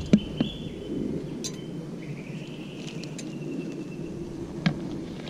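A few light metallic clinks and clicks from a metal cup of water being set on a small fire, over a faint steady high tone.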